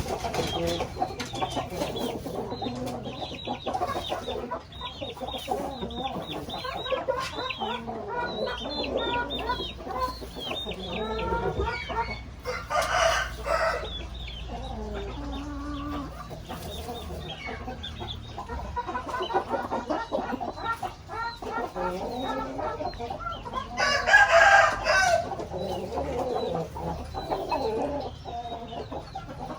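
A flock of chickens clucking and chirping continuously, with a rooster crowing loudly twice, once about 13 seconds in and again about 24 seconds in.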